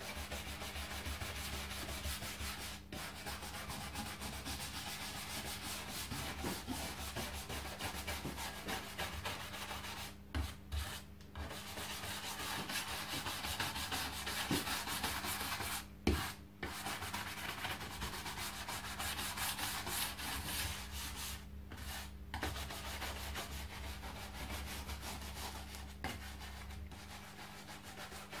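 A stiff hand brush scrubbing rapidly back and forth along a wooden musket stock coated in an acidic cleaning foam, lifting old finish and grime to bring up bare wood. The scrubbing runs almost without a break, stopping briefly three times.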